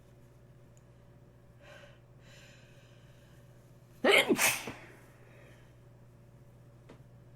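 A person with a congested nose gives faint sharp intakes of breath, then one loud, brief sneeze about four seconds in that fades out within a second.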